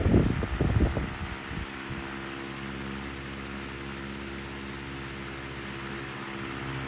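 1967 Hunter CG16 16-inch commercial-grade oscillating table fan running with a steady motor hum and blade rush. Its air stream buffets the microphone for the first second and a half, then drops off as the head swings away.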